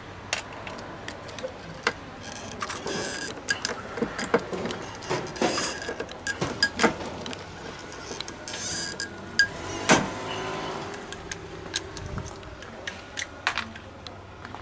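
Irregular sharp clicks and light metallic clatter of hand tools and small metal parts being handled, with a few short scraping sounds and two louder snaps about nine and ten seconds in.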